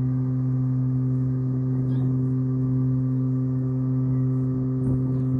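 A ship's horn sounding one long, steady, low blast.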